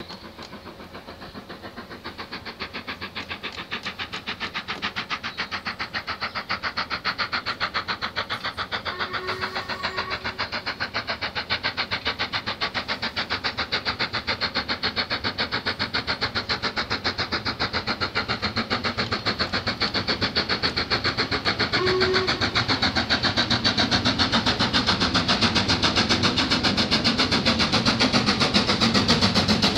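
LMS Black 5 No 45212 steam locomotive approaching under steam, its two-cylinder exhaust beating in a rapid, even chuff that grows steadily louder. Two brief steady tones sound over it, one about a third of the way in and a shorter one later.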